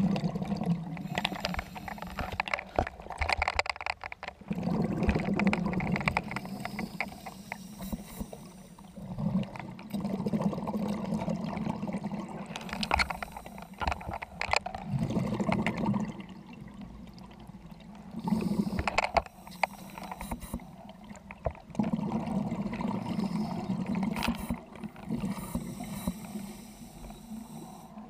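Scuba diver breathing through a regulator underwater: exhaled bubbles gurgle out in bursts of one to three seconds, with quieter inhalations between, repeating every few seconds.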